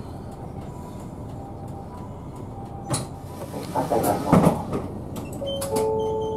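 Keikyu Bus city bus standing at a stop with its engine running; from about three and a half seconds in, its passenger door opens with a hiss and clatter, and a steady electronic tone sounds near the end.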